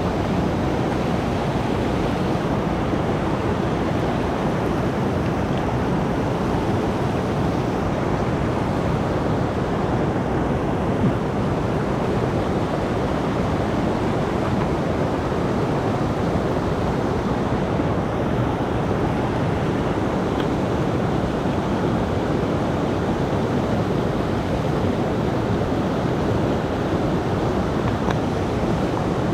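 Rain-swollen mountain stream rushing: a loud, steady wash of water, with one brief knock about eleven seconds in.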